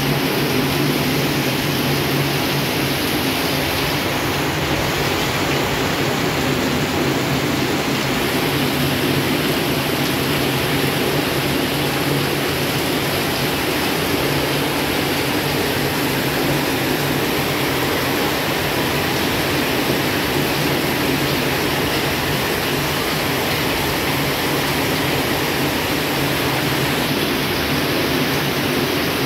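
Heavy rain pouring down steadily: a loud, even hiss that holds without a break.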